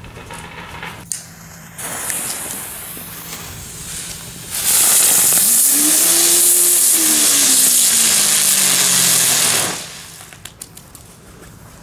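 Small category 1 'Whizzly' firework burning: its fuse fizzes, then about four and a half seconds in it bursts into a loud hiss of spraying sparks with a faint whirring tone that rises and falls. The hiss lasts about five seconds and then dies away, leaving a few small clicks.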